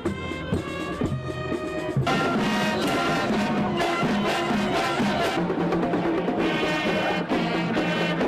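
Marching band music: light struck percussion at first, then the full band with brass comes in loud about two seconds in.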